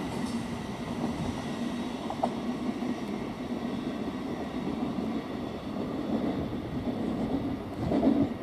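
Thameslink Class 700 Desiro City electric trains running on the rails: a steady rumble with a faint high whine, as one unit pulls away and another approaches. The rumble swells briefly near the end.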